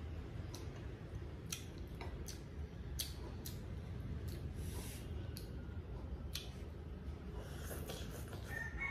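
Eating sounds: chopsticks clicking against a small ceramic rice bowl, with chewing, in a dozen or so separate sharp clicks over a steady low background rumble. Near the end a rooster crows faintly.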